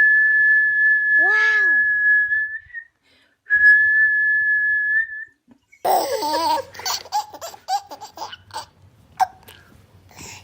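A whistle sounding one steady high note for about three seconds, then again for under two seconds after a short gap. From about six seconds in, a baby laughs in a run of short giggles.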